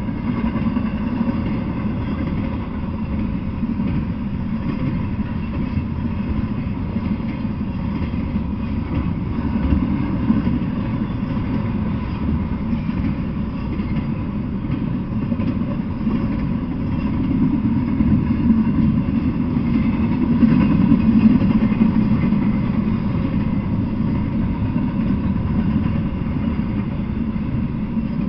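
Double-stack intermodal freight train rolling past: a steady noise of steel wheels on rail, growing a little louder past the middle.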